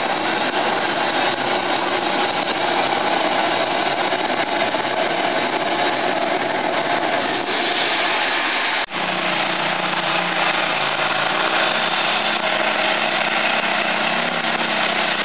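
Small pulling tractors' engines running loud and steady. A sudden brief dropout comes about nine seconds in, after which another pulling tractor's engine holds a steadier, lower note.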